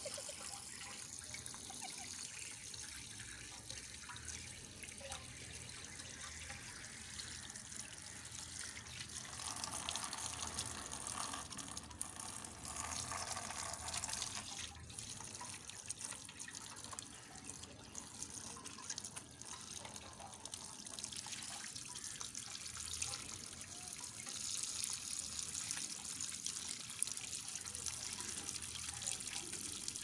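Water spraying from a garden hose through a wire cage and splashing onto the wet floor: a steady hiss of running water that grows louder and fuller for several seconds about a third of the way in.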